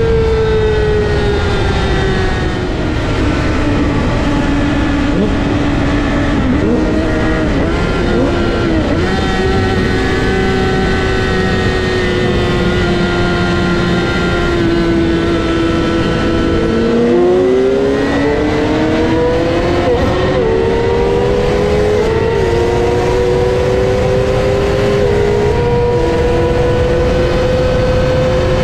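Yamaha R6's inline-four sport-bike engine at high revs with heavy wind rush. The engine note sinks slowly as the throttle eases, then about halfway through it pulls up again in pitch, dropping briefly at about three quick upshifts.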